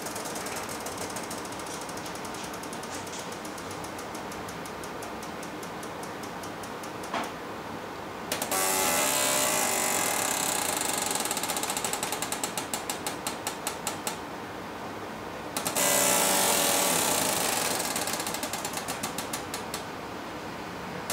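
Pneumatic robot arm running under a 5.0 kg load at its tip: a steady rapid clicking with a hiss of air. The sound grows louder with a steady whine about eight seconds in and again about sixteen seconds in, pulsing several times a second near the end of each stretch.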